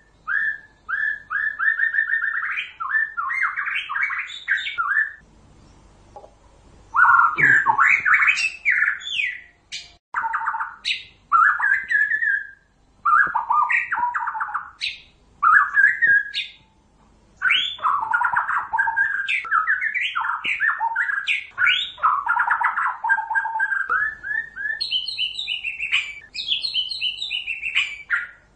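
White-rumped shama (murai batu, Pasaman type) singing: phrases of quick repeated notes, trills and sweeping whistles lasting a few seconds each, with short pauses between them.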